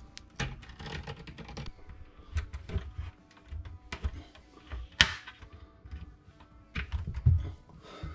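Clicks and light knocks of concealed cup hinges on a painted cabinet door being clipped and fitted as the door is rehung, with one sharp snap about five seconds in.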